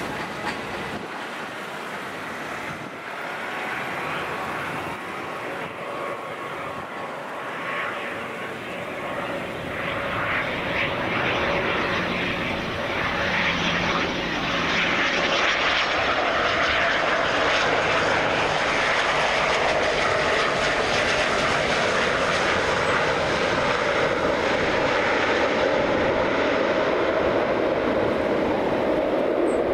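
An airliner's engines grow steadily louder over the first half, then hold steady and loud.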